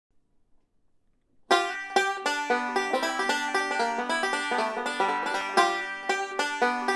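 Gold Tone OB-250 five-string resonator banjo with a bell brass tone ring, fingerpicked in a quick run of bright notes that starts about a second and a half in.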